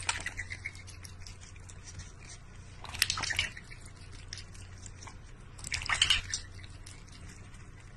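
Water splashing and dripping in a large stainless-steel bowl, in short bursts about every three seconds.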